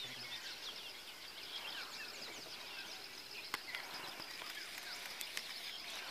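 Several birds chirping and calling, many short high chirps overlapping over a steady hiss, with two sharp clicks partway through.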